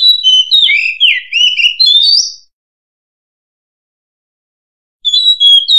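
Oriental magpie-robin singing loudly: a phrase of quick, varied whistled notes that slide up and down, lasting about two and a half seconds, then a pause and a second phrase starting near the end.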